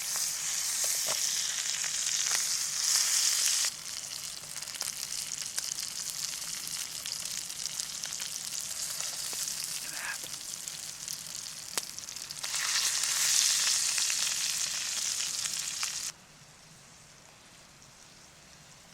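Brown trout sizzling in hot bacon fat in a pan, a steady hiss that swells and eases. It cuts off suddenly about sixteen seconds in.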